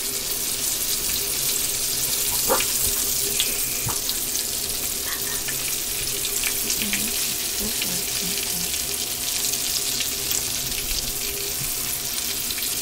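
Floured squirrel pieces frying in hot oil in a pan: a steady sizzle, with a couple of light clicks about two and a half and four seconds in.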